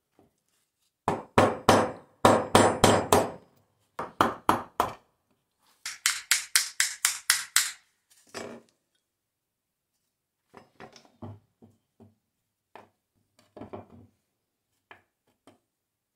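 Runs of sharp metal knocks, several a second, as an old hand drill's spindle and pinion gear are knocked apart. A brighter, higher-pitched run of knocks follows, then scattered light taps and clinks in the second half.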